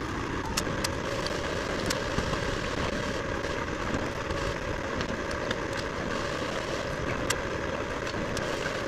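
Steady machinery noise like an engine running, with scattered short sharp clicks throughout.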